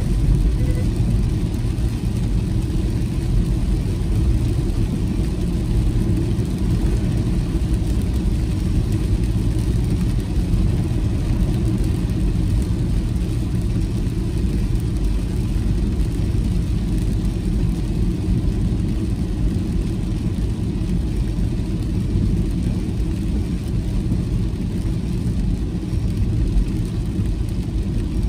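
Steady low rumble of a car's road and engine noise while driving on a wet road, heard from inside the cabin.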